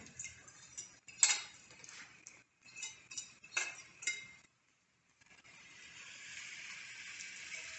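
A metal spoon scraping and clinking against a ceramic bowl as apple slices are tipped into a cast-iron skillet: a run of sharp clinks over about four seconds. After a short gap, a steady sizzle of hot shortening frying under the apples.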